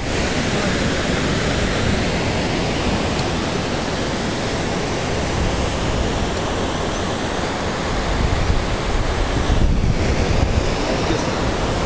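Fast mountain river rushing over boulders in white-water rapids: a steady, unbroken rush of water.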